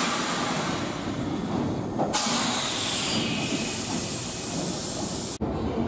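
Loud hiss of compressed air venting from a Nankai electric train's brakes as they are set to emergency braking during the end change at the terminus. A second, stronger blast comes about two seconds in, and the sound cuts off suddenly near the end.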